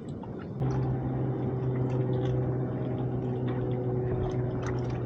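A steady low machine hum with several overtones starts abruptly about half a second in and holds at one pitch, with light clicks and knocks scattered over it.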